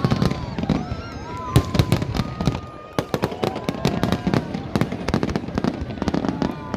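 Fireworks going off in quick succession, sharp bangs and crackles overlapping throughout, with people in the crowd calling out over them.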